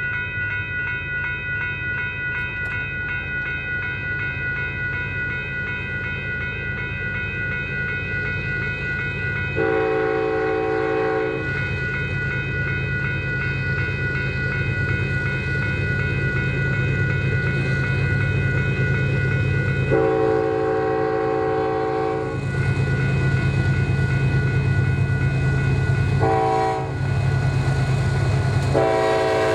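Diesel locomotive horn sounding the grade-crossing signal, long, long, short, long, over the steady drone of the running train and a high whine. The last long blast starts near the end and carries on.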